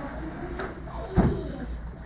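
A single dull thump a little over a second in, loud and low, dying away quickly, over quiet room noise.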